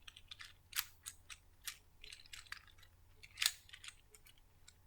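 Small plastic fidget cube being clicked and snapped close to the microphone for ASMR: a string of short, sharp plastic clicks at irregular intervals, the loudest about three and a half seconds in.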